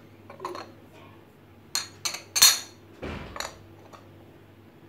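White ceramic plates used as lids clinking and knocking against glass bowls as they are lifted off: a series of sharp clinks, the loudest about two and a half seconds in.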